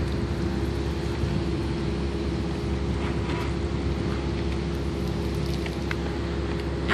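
Homemade RC cargo ship's two 12 V brushed motors and water pumps running with a steady hum, with a patter of cooling water spitting out from the outlets on both sides of the hull.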